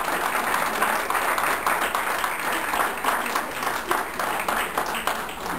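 A small group of people applauding, a dense patter of hand claps.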